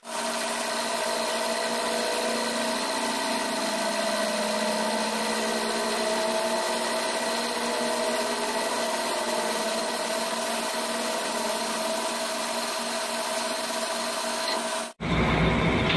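CNC lathe turning a metal cylinder: a steady whine from the spinning spindle and the cutting tool on the workpiece. About a second before the end it breaks off abruptly and a louder, deeper machine sound takes over.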